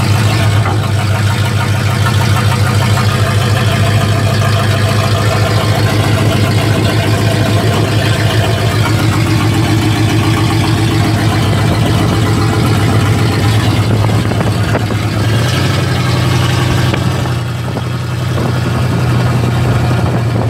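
1955 Pontiac truck's engine running steadily while the truck is driven, heard from inside the cab, with a brief dip in level near the end.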